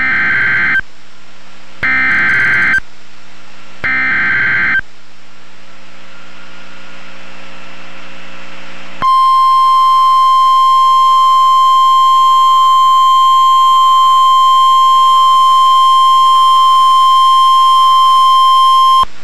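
Emergency Alert System signal: three short bursts of SAME header data, each a harsh warbling screech about a second long, a second apart. Then a few seconds of low hum, and a steady single-pitch alert tone near 1 kHz that runs for about ten seconds and cuts off suddenly near the end. That tone is the 1050 Hz NOAA Weather Radio warning tone.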